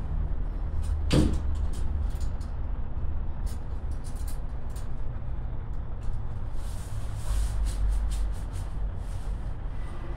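Roosevelt Island Tram aerial cable-car cabin running along its cables, a steady low rumble heard from inside the cabin, with one sharp clank about a second in and a few light clicks later.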